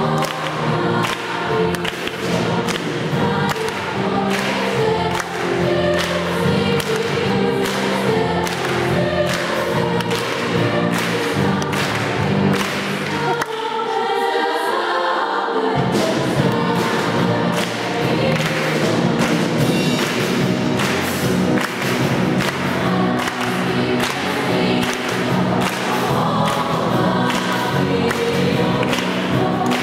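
Girls' choir singing over a steady beat. About halfway through, the low accompaniment drops out for about two seconds, then comes back.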